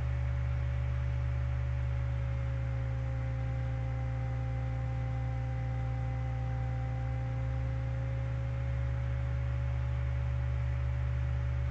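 Steady low electrical hum with a faint, thin whine above it that sags slightly in pitch through the middle.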